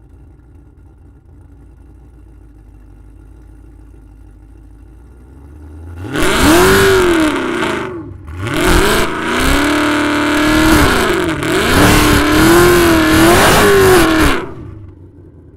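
2016 Camaro SS's 6.2-litre LT1 V8 idling, then revved hard for about eight seconds in a line-lock burnout, front brakes held while the rear tyres spin. The revs rise and fall repeatedly, with a brief drop about eight seconds in, and fall back near the end.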